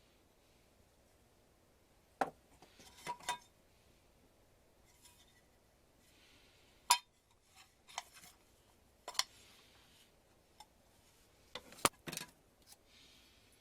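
Small hard objects handled at a workbench: scattered clicks and light clinks at irregular intervals, with faint rustling between, the loudest two about seven and twelve seconds in.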